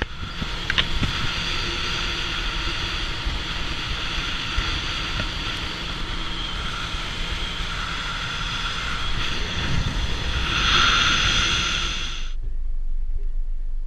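A 90 hp outboard motor pushing a small aluminium boat at speed, its steady high whine mixed with water rushing past the hull and wind rumbling on the microphone. About twelve seconds in the higher sound cuts off suddenly, leaving only a low wind rumble.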